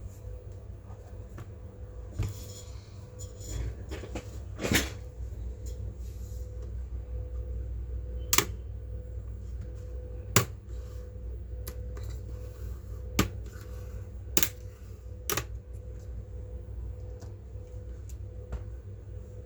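Scattered sharp clicks and taps of hard plastic and metal from a laptop being handled and worked on, about eight of them spread irregularly, over a steady low hum.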